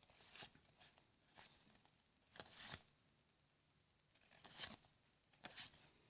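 Faint, brief rustles and slides of trading cards and pack paper being handled, about eight separate short strokes, the loudest about two and a half seconds in and again a little over four and a half seconds in.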